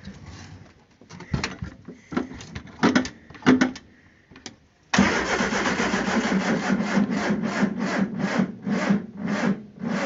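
A few knocks and clicks, then, about five seconds in, the Triumph Spitfire's starter motor cranks the engine slowly in an even, labouring rhythm of about two to three turns a second without it firing. The battery is dead.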